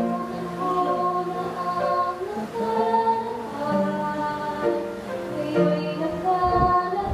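A woman singing a Tagalog hymn solo into a microphone in held, sustained notes, over a steady instrumental accompaniment. There is a brief low thump near the end.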